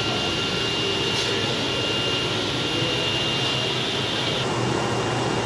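Flatbed digital cutting plotter running while its knife head cuts the outline of a large die-cut sticker: a steady whirring hiss with a thin high whine. The whine stops about four and a half seconds in.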